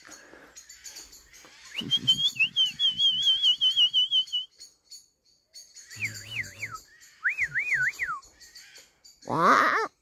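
A person whistling a high, warbling trill, then a few seconds later slower swooping whistles that rise and fall. Just before the end comes a loud, rising, voice-like call.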